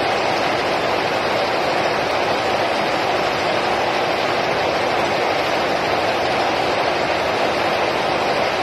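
Richpeace multi-head flat embroidery machine running, its row of heads stitching together in a steady, even mechanical noise with no clear beat.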